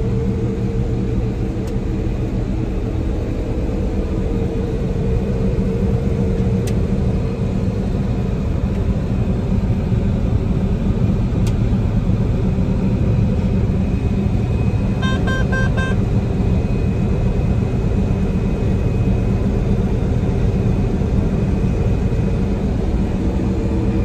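John Deere 9770 combine running steadily under harvest load in soybeans, heard from inside the cab as an even engine and machine drone. About fifteen seconds in, a quick run of electronic beeps sounds from the cab.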